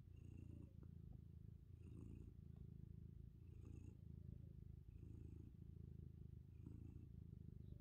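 Domestic cat purring softly and steadily, the purr swelling and easing in a slow rhythm about every second and a half as it breathes in and out.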